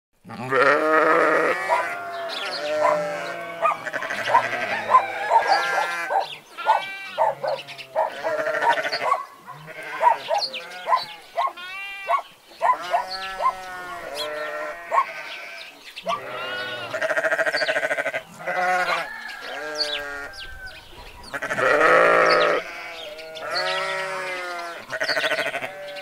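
Sheep bleating over and over, long wavering calls overlapping one another. Shorter, quicker animal calls fall between them, thickest in the middle stretch.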